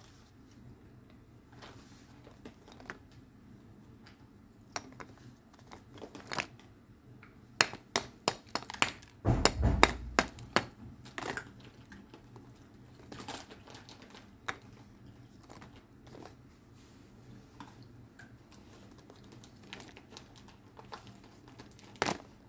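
Dry lumps of multani mitti (Fuller's earth clay) being handled and broken by hand in a plastic colander: scattered sharp cracks and crumbly scrapes, busiest around the middle, with a dull heavy knock about ten seconds in.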